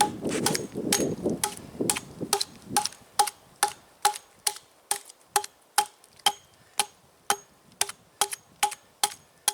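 Rapid, even chopping strokes of an axe into a dry log, about two a second, each knock with a short wooden ring. Rustling of handled wood in the first two seconds.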